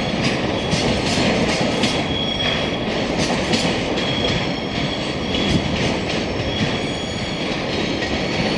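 Taki 1000 petroleum tank wagons of a departing oil freight train rolling past, their wheels clicking steadily over rail joints, with several short, thin wheel squeals from about two seconds in.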